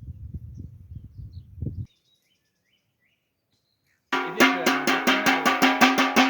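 Low rumbling noise with faint bird chirps, cut off to total silence for about two seconds; then loud music starts, with quick, evenly spaced drum strikes, about six a second, over steady pitched tones.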